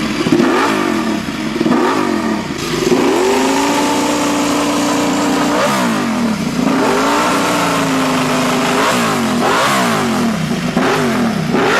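Ducati Desmosedici RR's 989 cc desmodromic V4 engine revving: quick repeated blips of the throttle, with the revs held steady twice in the middle for a couple of seconds each.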